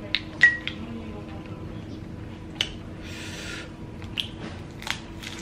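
Cooked Dungeness crab legs being cracked and pulled apart by hand: a handful of sharp shell cracks, the loudest about half a second in, with wet squishing of the sauced shells and a brief hiss near the middle.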